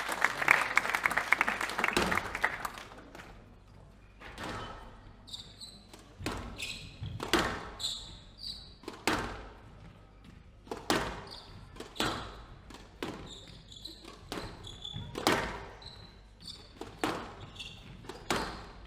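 Squash rally: sharp cracks of the ball struck by rackets and hitting the walls, about one a second, with high squeaks of court shoes on the wooden floor between them. It opens with a couple of seconds of applause.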